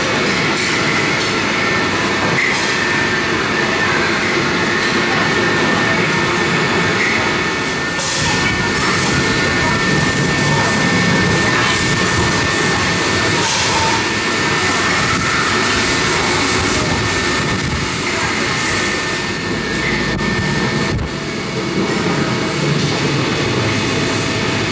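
Steady din of a busy hawker centre at mealtime: many overlapping voices and kitchen and ventilation noise blending into one continuous wash of sound, with a thin steady high whine through most of it.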